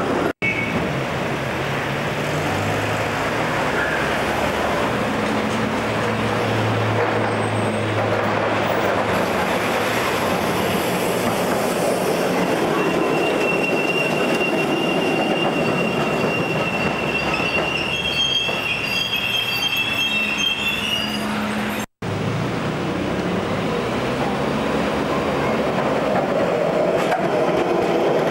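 W-class tram running past with street traffic, its steel wheels giving a steady high squeal on the rails for several seconds in the middle.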